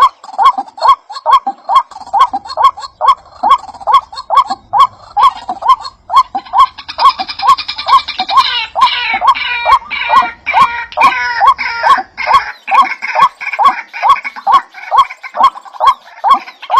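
A bird calling over and over in an even rhythm, about three short notes a second, each with a sharp click. Busier, higher chirping joins in from about seven to twelve seconds in.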